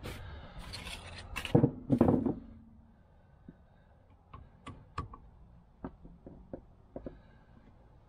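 Sockets and hand tools clinking and rattling as they are picked from a tool tray: a spell of clattering and rubbing, loudest about one and a half and two seconds in, then scattered light metal clicks.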